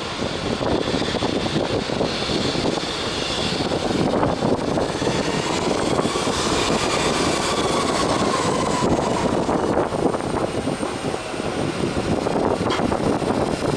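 Boeing 737 jet engines running at taxi power: a steady rumble with a faint high whine over it that rises and falls slightly around the middle.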